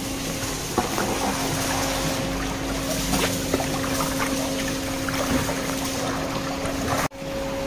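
Water trickling and splashing in tubs of catfish being sorted through plastic mesh sorting baskets, over a steady motor hum. The sound drops out briefly near the end.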